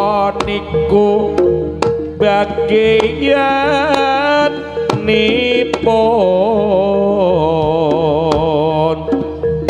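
Jaranan music from a Javanese ensemble. Sharp hand-drum strokes sound under a wavering, ornamented melody line, over a steady held tone.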